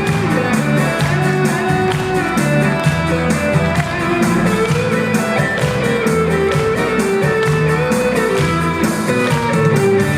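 A band playing an instrumental interlude between verses of a song, with guitar and a steady beat and no singing.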